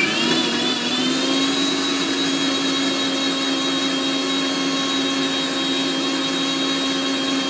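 Butterfly mixer grinder running with its steel jar, whipping eggs into a froth for mayonnaise. The motor's whine rises in pitch over the first second or so as it comes up to speed, then holds steady.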